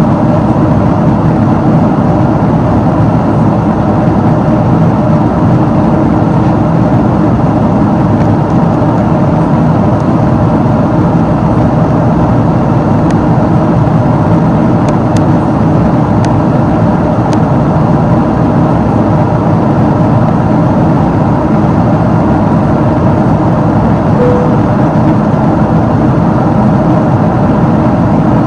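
Steady in-flight cabin noise of a Boeing 777-300ER, heard inside the cabin at a window seat beside its General Electric GE90-115B engine: a constant loud rush of engine and airflow noise with a faint hum running through it.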